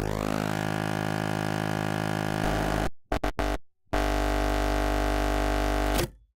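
Synthesizer music: a held chord sweeps in, a few short stabs come about three seconds in, then a second held chord cuts off abruptly about six seconds in.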